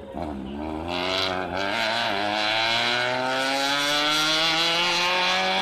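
Rally car engine accelerating hard, the revs wavering briefly in the first two seconds and then rising steadily in one long pull.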